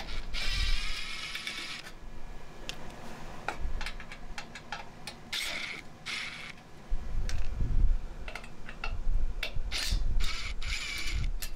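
DeWalt Atomic cordless impact driver backing screws out of a microwave's sheet-metal casing. It runs in bursts: one long run at the start, then several short ones later, with small metallic clicks between them.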